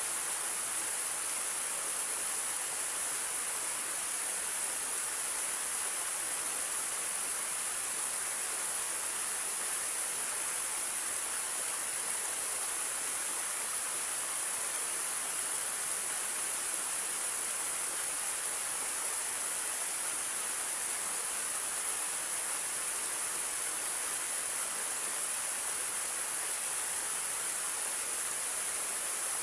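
Small waterfall with clear water, the falling and flowing water making a steady, even rushing hiss.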